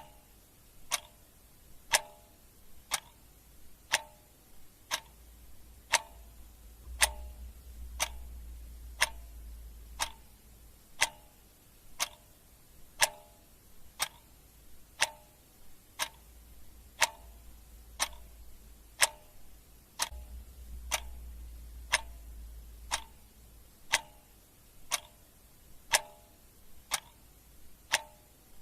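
Clock ticking steadily once a second, the ticks alternating louder and softer in a tick-tock pattern.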